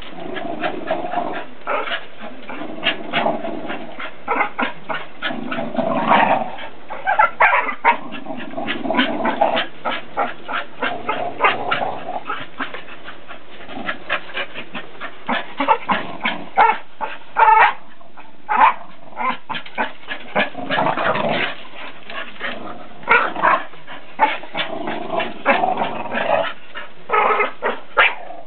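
Two Staffordshire bull terriers growling while they pull a plastic disc between them in tug-of-war play, with many quick clicks and scrapes throughout.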